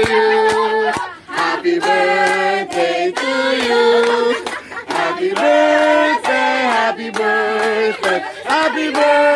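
Singing voices carrying a melody in held notes, with steady rhythmic hand clapping.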